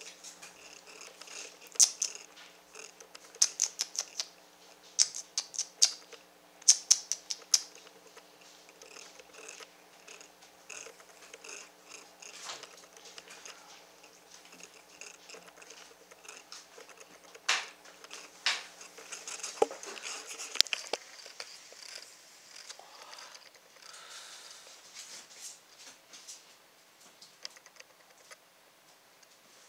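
4½-week-old Saint Bernard puppies wrestling on fleece bedding in a wooden whelping box: quick clusters of sharp clicks and scratches from their claws and scuffling. The clicks come in bursts through the first third and again about two-thirds of the way through.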